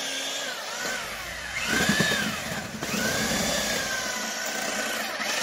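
Electric power tool running with a whine that rises and falls in pitch several times as it speeds up and slows down.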